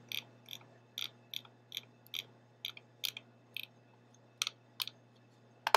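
Light, evenly paced clicks from working the computer while scrolling down through code, about two to three a second, with a sharper click near the end, over a faint low hum.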